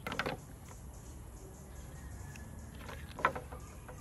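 Homemade paper rifle being handled and its bolt worked by hand: a short rattle of clicks at the start, then another cluster of sharp clicks about three seconds in. The spent case will not come out because the extractor is broken.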